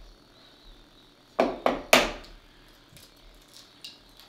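An egg knocked three times against the rim of a mixing bowl to crack it: three sharp taps about a quarter second apart, the last the loudest.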